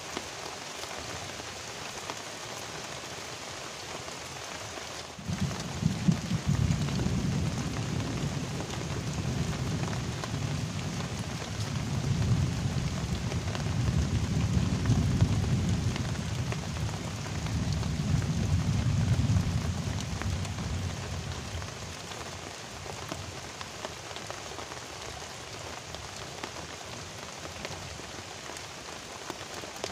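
Steady heavy rain hissing on the river and the bankside foliage. About five seconds in, a long low rumble of thunder sets in, rolling in several swells for about fifteen seconds before dying away.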